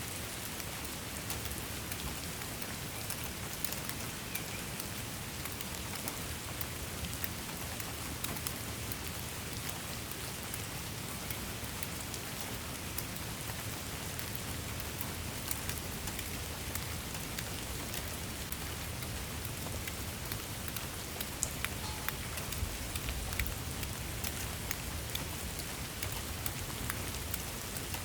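Steady rain falling on a surface, an even hiss with many separate drop ticks.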